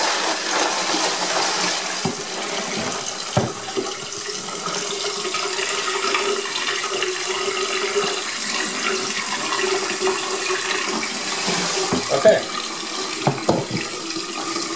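Water pouring and splashing out of a plastic wet-tumbling barrel into a container in a utility sink, as the carbon-darkened rinse water is tipped out from among the stainless steel pins and brass cases. A few knocks of the barrel come through, one about three seconds in and several near the end.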